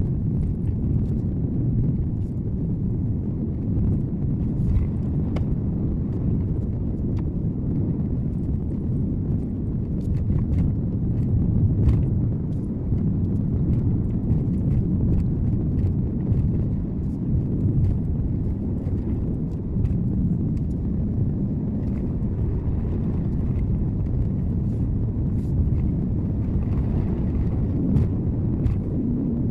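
Car road noise recorded by a dashcam inside the cabin: a steady low rumble of tyres and engine while driving, with scattered light clicks and ticks.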